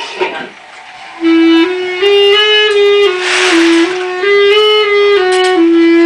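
A clarinet playing a short, slow line of held notes that step up and down, starting about a second in and ending on a longer held note.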